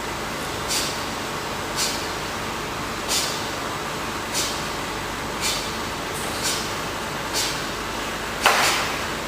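Refrigerator degassing machine running steadily while it draws oil and refrigerant out of the compressor, with a short hiss of escaping air or gas about once a second, eight times in all. The last hiss, near the end, is the loudest and longest.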